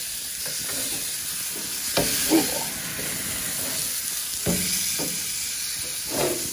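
Steaks sizzling steadily on a hot barbecue grill grate, with a metal spatula knocking and scraping against the grate several times as the steaks are flipped.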